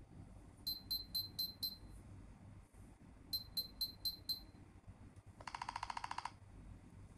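Nothing Phone (1) speaker playing its electronic glyph ringtone tones. There are two runs of five quick, high blips, and near the end a rapid buzzy stutter of lower tones.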